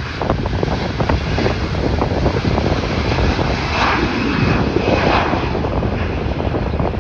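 Philippine Airlines Airbus A330 twin-jet at takeoff thrust as it lifts off and climbs away, its engines running as a loud, steady jet roar that swells at its loudest about four to five seconds in.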